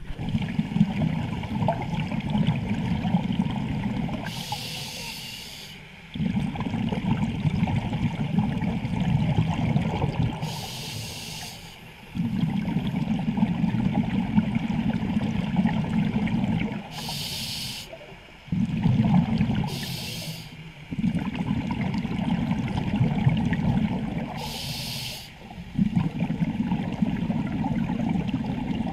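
Scuba diver breathing through a regulator underwater: a short high hiss on each inhale, then a long low bubbling as the exhaled air escapes, about five breaths, one every five to six seconds.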